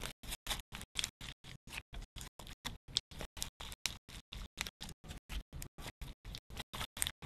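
Slime squeezed and stretched in the hands, its wet clicks and crackles heard in short, evenly spaced bursts about five a second with gaps of silence between.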